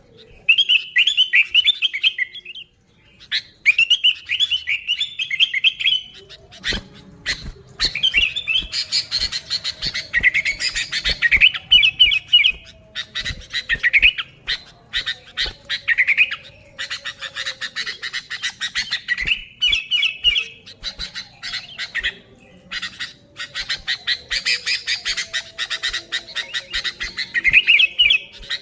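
Sooty-headed bulbul calling: short, bubbly warbled phrases repeated again and again, joined after about seven seconds by fast, harsh chattering.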